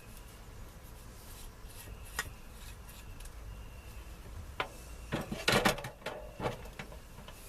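Soldering iron tip being rubbed clean against a tip cleaner: a few light ticks, then a short run of scraping about five seconds in.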